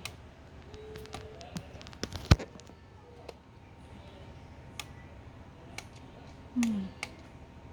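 Scattered clicks and taps from handling an aroma diffuser, with one loud sharp click about two seconds in.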